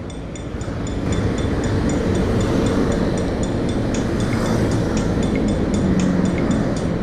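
Honda Scoopy's single-cylinder scooter engine idling while stopped, with road traffic rumbling past. A steady fast ticking runs through it, about three ticks a second.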